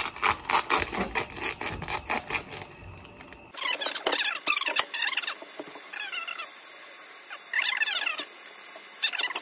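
Knocks and rubbing from a phone camera being handled and set down, then rustling and crinkling of MRE plastic and foil pouches being opened and handled. Short high squeaky sounds come about four and eight seconds in.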